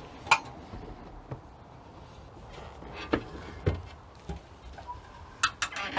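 A handful of light clicks and knocks from kitchen fittings being handled, spaced a second or so apart, with a quick cluster near the end.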